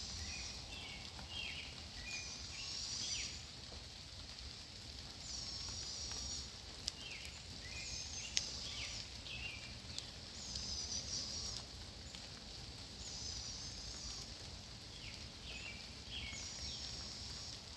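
Barred owlets giving raspy, hissing begging screeches, each about a second long and repeated every two to three seconds: the calls of hungry young owls asking to be fed.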